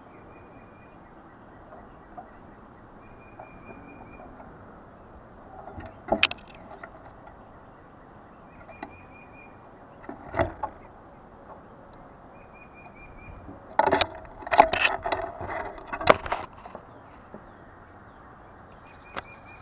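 Squirrel's claws and body knocking and scraping against the camera right at the microphone: a couple of single knocks, then a dense run of loud scrapes and knocks near the end as it climbs onto the camera. A short high bird trill repeats every few seconds in the background.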